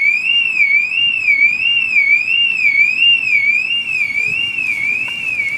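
Car alarm sounding continuously: a high tone warbling up and down about twice a second.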